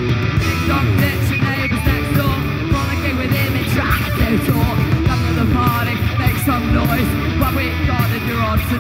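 Live rock band playing loudly on electric guitar, bass and drums, with a singer's voice over the band.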